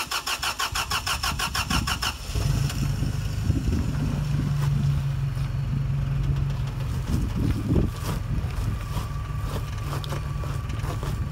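A truck's starter motor cranks the engine in gear against the drivetrain load on a steep climb, at about six even pulses a second. The engine catches about two seconds in and settles into a steady idle.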